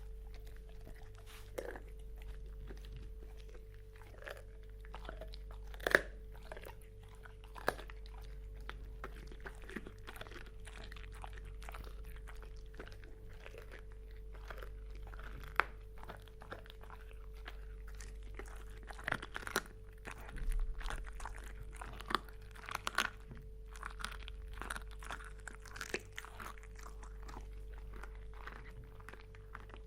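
A dog chewing on a bone: irregular sharp cracks and crunches with tongue sounds, coming thickest a little past the middle. A faint steady hum runs underneath.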